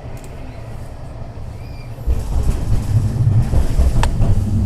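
Tram running along the track, heard from inside: a steady low rumble that gets suddenly louder about two seconds in, with a single sharp click near the end.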